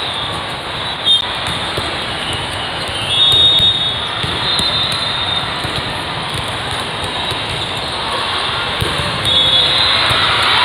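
Busy indoor volleyball tournament hall: a steady din of many courts and voices, with a sharp knock about a second in and brief high shrill tones about three seconds in and again near the end.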